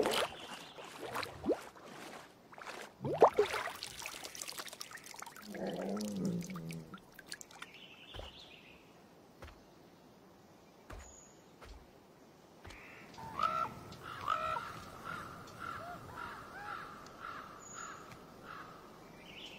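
Common ravens calling, a run of repeated croaks at about two a second in the latter half. Before them, a few scattered sharp sounds, the loudest about three seconds in, and a short low call about a third of the way through.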